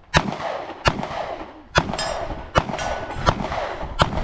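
Handgun shots fired in a steady string: six sharp cracks, a little under a second apart.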